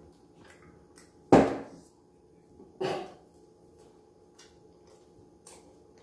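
Two loud crunches from biting into crispy Popeyes fried chicken, about a second and a half apart, the first louder. Faint small mouth clicks come between and after them.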